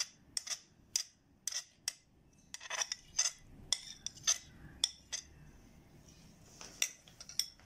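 Metal spoon clinking and scraping on a ceramic plate as chopped vegetables are pushed off it: a quick, irregular run of sharp clinks, with a quieter stretch about two-thirds of the way through.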